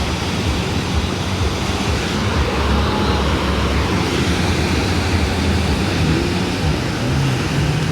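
Steady beach noise of waves washing on the shore, with a low, even rumble underneath.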